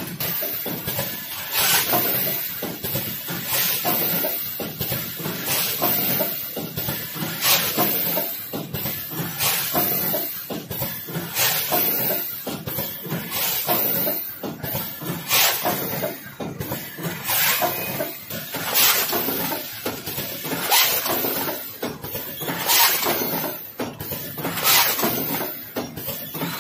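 AP-8BT-VI rotary premade-pouch filling and sealing machine running: a steady mechanical clatter, with a sharp hiss of compressed air from its pneumatic actuators about every two seconds as it indexes through its cycle.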